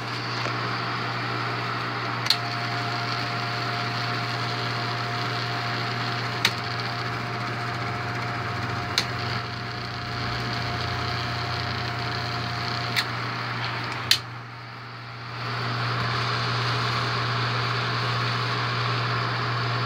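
Bell & Howell 8mm film projector's motor and cooling fan running steadily with a low hum, punctuated by several sharp clicks of its controls. A faint steady whine comes in with one click and stops with another, and after a loud click near the middle the running drops away for about a second, then spins back up.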